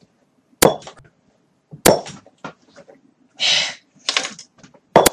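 Two sharp cracks a little over a second apart, then two short hissing bursts and more cracks near the end, typical of airsoft gunfire.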